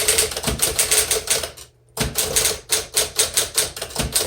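1959 Smith Corona Electric typewriter being typed on quickly: rapid runs of key strikes, several a second, with a brief pause a little before the middle, over the low hum of its running motor.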